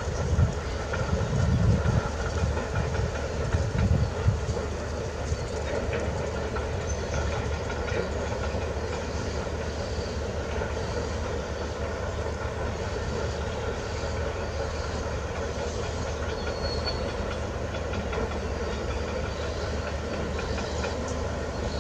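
Kubota M9540 tractor's four-cylinder turbo diesel engine running under load while pulling a disc plough through stony ground. The low rumble is louder and uneven for the first few seconds, then settles to a steady drone.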